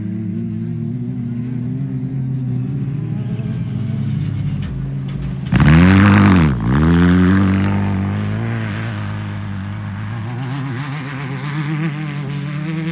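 Off-road race cars' engines running at speed. About five and a half seconds in, a much louder car comes in close, its engine pitch dipping and climbing back as it goes by, then the sound settles back to steady engine noise.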